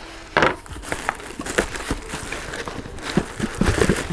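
Cardboard shipping box being opened by hand: its flaps pulled apart and the cardboard rustling and scraping in a quick, irregular run of small knocks and crinkles, as a boxed graphics card is lifted out near the end.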